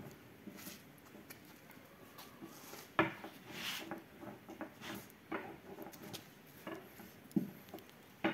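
Wooden rolling pin rolling and knocking on a wooden board as dough is rolled out thin, with soft rustles of dough and cloth. A few sharp knocks stand out, the loudest about three seconds in and another at the end.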